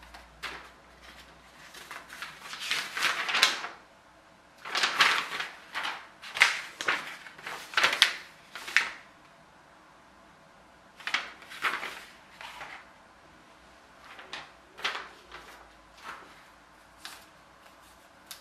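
Handling noises from a laser-cut balsa sheet being moved about and taken off a building board covered in plastic film: irregular rustling and scraping in several bursts, some sharp.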